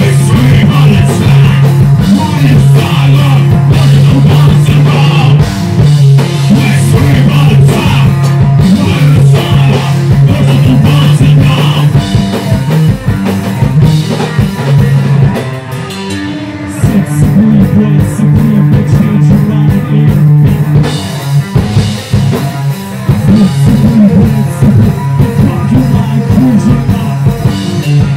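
Live math rock played loud on electric guitar and drum kit. Sustained low guitar notes ride over busy drumming, easing off for a moment about halfway through before the full band comes back in.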